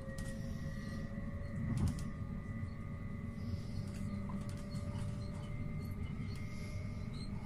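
Running noise inside a moving electric regional train: a steady low rumble from the wheels and track, with an electric motor whine that rises slowly in pitch as the train gathers speed, and a single knock about two seconds in.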